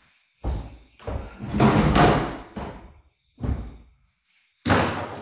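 A series of irregular heavy thuds and bumps, five in all, the longest and loudest about one and a half to two and a half seconds in.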